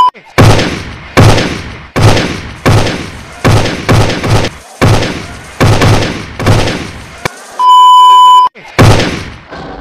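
Assault rifle gunshots: about ten single shots at roughly one every three-quarters of a second, each with a short fading tail. Near the end a steady high-pitched TV test-tone beep sounds for about a second, then one more shot.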